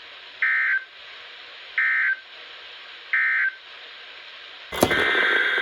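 Emergency Alert System end-of-message signal: three short bursts of screeching digital data tones about a second and a half apart over steady radio hiss, marking the end of the severe thunderstorm warning. Near the end a sharp click is followed by the start of a longer burst of data tones.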